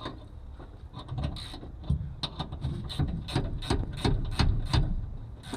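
Ratchet wrench clicking as the seat's mounting bolts are tightened down. The clicks are uneven at first, then settle into a steady rhythm of about three strokes a second.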